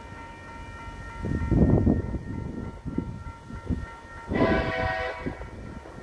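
Wind gusts buffeting the microphone, loudest a little over a second in, and a short, distant blast of a TasRail diesel locomotive's horn about four seconds in. The train is approaching but not yet passing.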